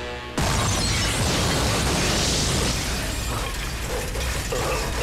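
Film sound effects of a van crash and explosion: a sudden loud crash about half a second in, then a rumbling blast mixed with the clatter of metal and breaking debris that slowly fades over the next few seconds.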